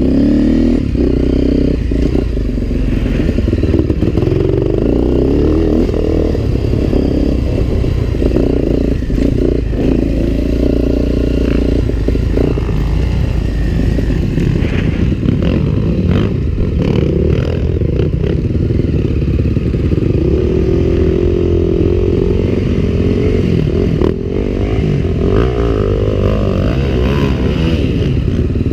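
Off-road trail motorcycle engine running, its revs rising and falling over and over with the throttle, with some clattering knocks from the bike over rough ground.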